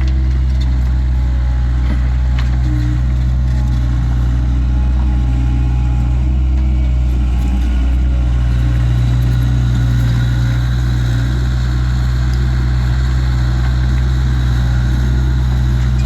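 Diesel engine of a Takeuchi TL26 track loader running steadily at working speed, with a brief dip and recovery in the engine note about eight seconds in.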